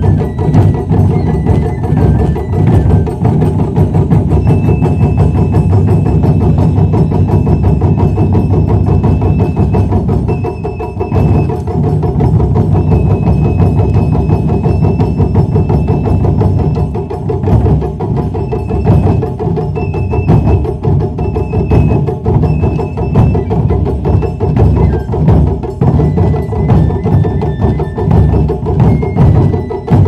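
Japanese wadaiko ensemble playing: several taiko drums struck in a fast, dense rhythm, with thin high notes held above the drumming.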